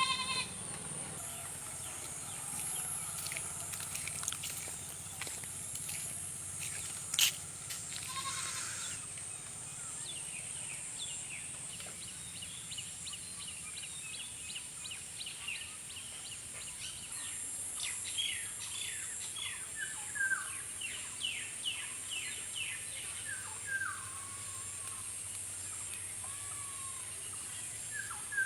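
Rural outdoor sounds: a goat bleats briefly at the start and again about eight seconds in, over a steady high insect drone. Through the second half a bird calls in rapid series of short falling chirps.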